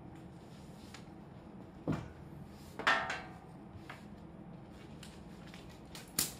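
Handling noises at a wooden desk while spilled water is wiped up with a cloth: a thump about two seconds in, a louder brief scrape about a second later, and a sharp click near the end, over a low steady hum.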